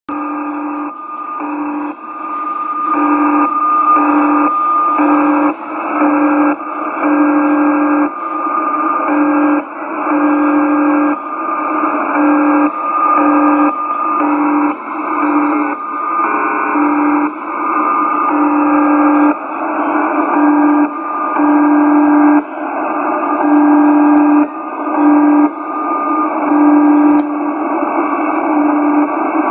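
Unidentified data-mode signal heard through a shortwave receiver tuned to 14.070 MHz in the 20-metre band. It is a cluster of steady tones that switch on and off in blocks of about half a second to a second, with short breaks between them, over band noise. It is clipped to the receiver's narrow audio passband.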